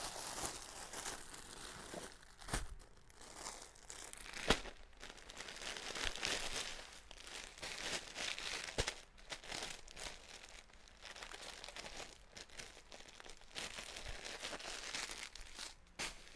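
Plastic bags of packaged clothing crinkling and rustling as they are handled and sorted through, unevenly, with a few sharp crackles.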